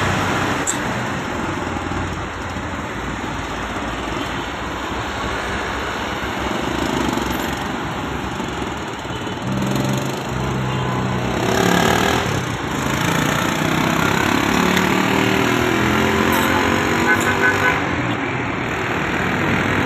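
Busy road traffic passing: car, truck and motorcycle engines with tyre noise on the road surface. About halfway through, one engine grows louder as it passes close, its pitch shifting.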